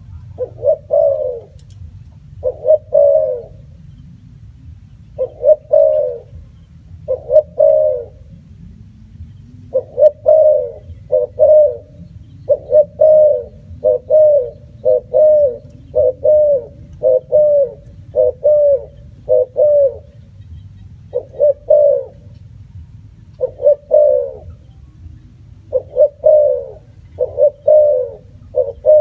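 Spotted dove cooing over and over: many short, low, arched coos, mostly in quick pairs and threes with short gaps between the groups. A low steady hum sits underneath.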